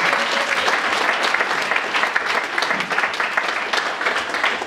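Audience clapping steadily: dense applause for a comic taking the stage.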